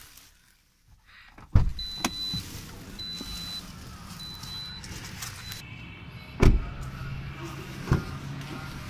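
Toyota Corolla Altis: a thump about a second and a half in, then a high warning chime beeping four times, then the car door shutting with a loud thump about six and a half seconds in and a smaller knock soon after. A low steady hum follows the door shutting.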